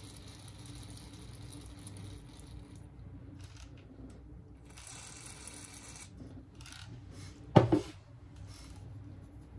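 Small repair tools and phone parts being handled, with faint light scraping and ticks, and one sharp double clack about three quarters of the way through as something hard knocks or is set down.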